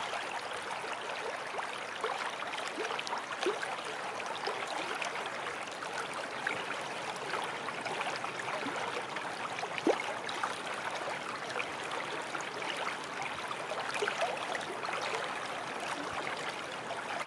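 Stream water rushing over rocks: a steady splashing with small bubbling gurgles, and one louder plop about ten seconds in.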